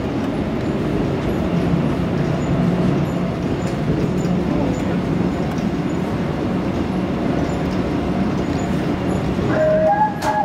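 Steady rumble of a Seoul Metro 2000-series Line 2 subway train running at speed, heard from inside the car. Near the end an electronic chime melody starts over the running noise, the onboard cue that comes before a next-station announcement.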